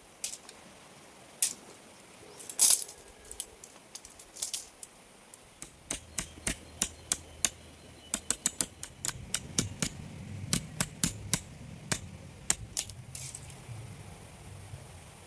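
Sharp clicks and clinks of small hard objects being handled: a few scattered at first, then several a second from about six seconds in, over a low steady hum.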